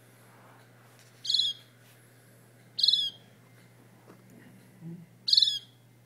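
A young silvereye (wax-eye) gives three short, high, downward-sliding calls, a fledgling calling.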